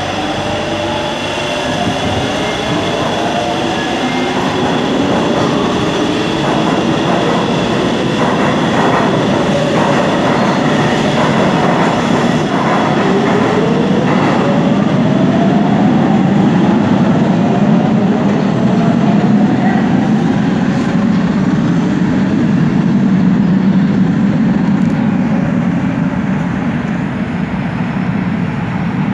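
Electric metro train in an underground station: rising whines of its traction motors as it gets under way, near the start and again about halfway, over a steady rumble that grows louder toward the middle.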